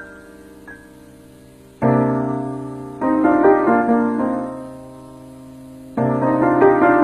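Background music of slow keyboard chords: soft at first, with a loud chord coming in about two seconds in, a run of notes that fades away, and another loud chord near the end.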